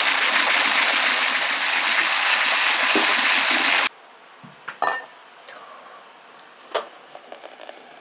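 Fast whisking of a yogurt and gelatine mixture in a stainless steel bowl, a loud steady scraping hiss that stops about four seconds in. After that, quieter pouring into a glass bowl of whipped cream with a couple of light clinks.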